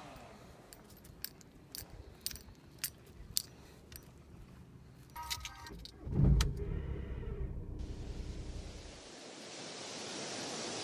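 Car keys jangling and clicking, then a Volkswagen's engine cranks and starts about six seconds in and runs. After that a steady rushing noise of the car on the move rises toward the end.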